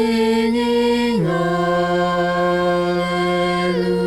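Unaccompanied singing of a worship hymn: the word "singing" on one note, then a step down to a long held note about a second in.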